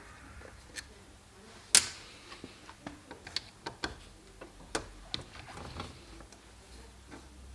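Small metal clicks and taps of a tool and parts on a Stromberg carburettor as it is taken apart, with one sharp, loud click just under two seconds in and a run of lighter irregular ticks after it.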